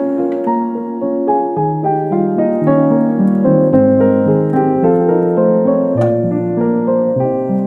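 Background piano music: a steady stream of gentle notes.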